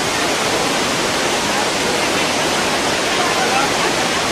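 Huangguoshu Waterfall and the cascades below it: water rushing in a loud, steady, unbroken wash of noise.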